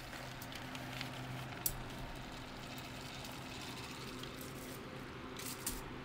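Electric fan running steadily at high speed, with the light ticking and rattling of a plastic Theo Jansen strandbeest model whose propeller turns a small gear reduction and its walking legs. A sharp plastic click comes about a second and a half in and another near the end.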